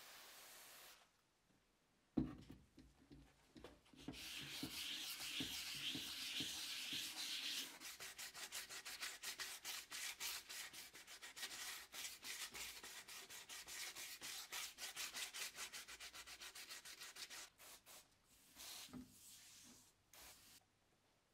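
Hand sanding the painted steel shell of an M17 helmet with a sanding pad on the wet surface. There is a single knock about two seconds in and a few seconds of steady scraping. Then come quick back-and-forth strokes at an even pace, fading to a few light strokes near the end.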